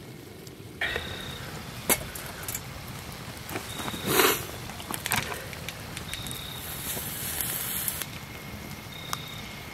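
Wood fire burning in a campfire and a small twig stove, with scattered crackles and pops. Over it come a few knocks and scrapes of cookware being handled, the loudest about four seconds in, and a rustle of dry leaves shortly before the end.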